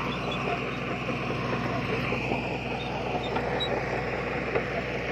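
Heavy earthmoving machinery's diesel engine running steadily under work, with a few faint knocks and squeaks over it.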